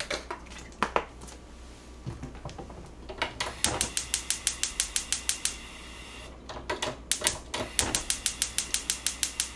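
Gas stove's ignition igniter clicking rapidly, about six clicks a second, in two runs of about two seconds each while the burner knob is held turned. A couple of light knocks about a second in.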